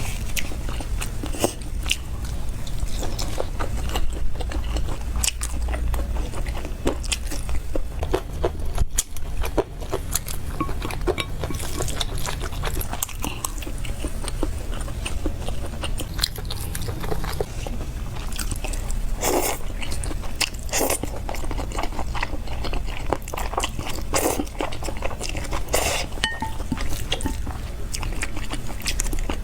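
Close-miked eating: a person biting and chewing crunchy food, with many small sharp crunches and mouth clicks scattered through.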